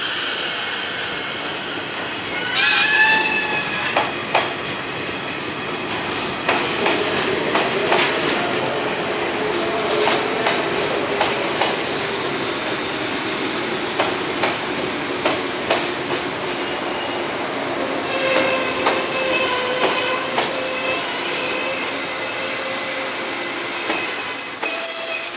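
JR East 185 series electric train moving through a station, its wheels clicking over rail joints. A short falling tone comes about two and a half seconds in, and from the second half on the wheels squeal steadily, louder near the end.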